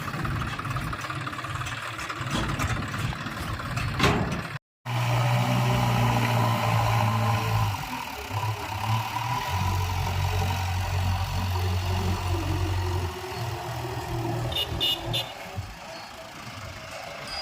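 Heavy diesel engine of earthmoving machinery running steadily under work, its low hum stepping in pitch a few times. The audio drops out for a moment about four and a half seconds in.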